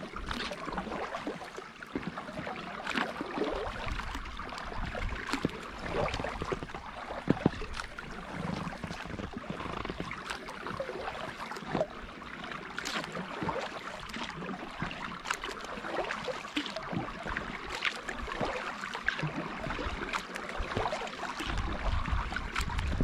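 Kayak paddle strokes through calm water: the blades dipping and pulling, with irregular drips and small splashes.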